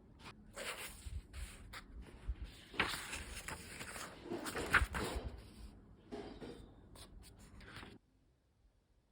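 Irregular rustling and scraping handling noises with scattered clicks and knocks, cut off suddenly about eight seconds in.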